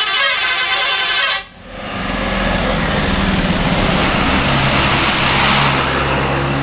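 Bus telolet horn playing its multi-tone melody, cut off suddenly about a second and a half in. Then a bus engine running under a steady rush of traffic noise.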